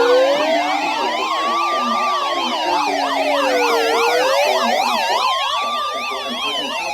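Several electronic sirens sounding at once: a slow wail rising and falling about every four seconds, layered over many fast yelping sweeps.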